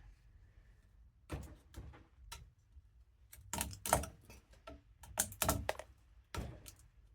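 Irregular light clicks and knocks of small metal parts and hand tools being handled, about a dozen in all, loudest about four and five and a half seconds in.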